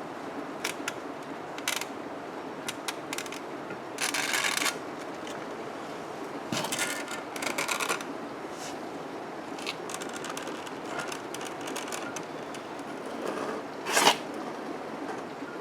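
Scraping, rustling and clicking as the probe cable of an inspection camera is pulled back out through a port of an air compressor tank, with louder scrapes about four and seven seconds in and a sharp knock near the end, over a steady low hum.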